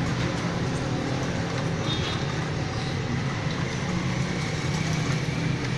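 Steady street traffic noise with a motor vehicle engine running close by, a constant low hum.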